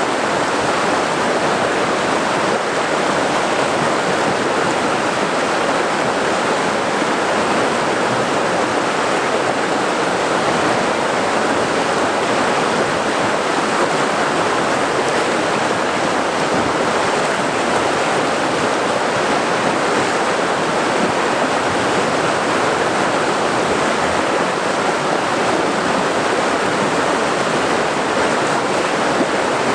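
River water rushing steadily, a dense, unbroken hiss of churning current with no pauses or changes.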